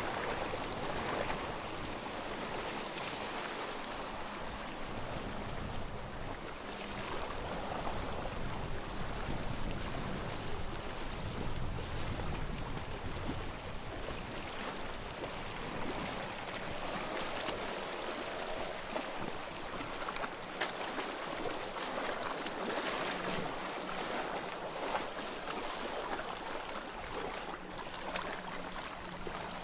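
Small sea waves washing against the shore, swelling and easing every few seconds.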